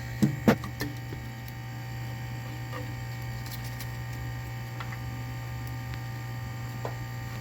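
Steady low electrical hum, with two sharp clicks about half a second in and a few faint ticks later, like small plastic and metal parts of the docking station being handled.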